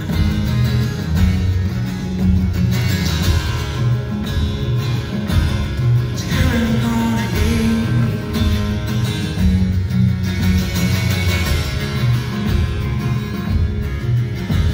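A live band playing an instrumental stretch of a slow country-folk song: acoustic guitar strumming, with electric guitar and drums keeping a steady beat.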